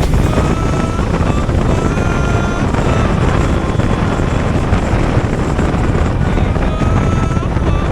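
Hero Xpulse 200 Pro's single-cylinder engine running while the motorcycle is ridden, under heavy wind noise buffeting the microphone.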